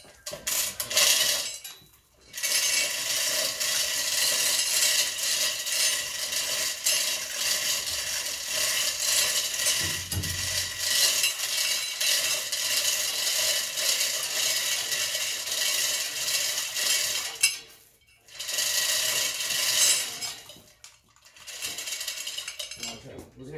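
Chain hoist's chain rattling and clinking steadily while an engine is lowered on it. It stops suddenly near the end, then runs again briefly for a couple of seconds.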